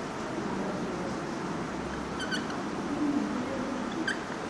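Whiteboard marker squeaking against the board while writing: a short high squeak about two seconds in and another near the end, over steady room noise.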